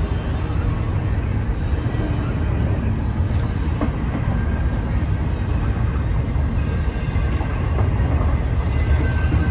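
Freight train rolling past with a steady low rumble, a few faint clicks from the wheels, and strong wind buffeting the microphone.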